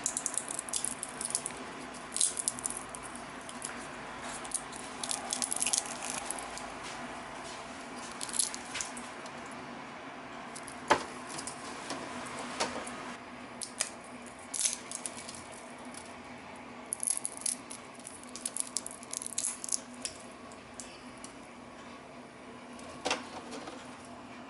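Hard, dried chikuwa pieces handled and pressed by fingers on a plastic dehydrator tray: clusters of dry crackles and rattles with a few sharp clicks, the loudest about eleven seconds in. The pieces are dried so hard that fingers can barely snap them.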